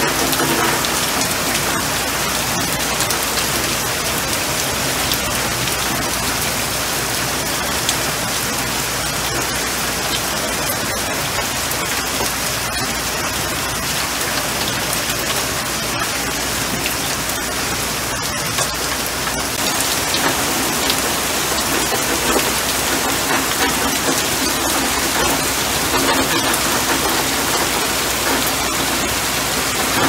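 Steady rain falling on leafy shrubs, an even hiss of many small drops striking the wet leaves.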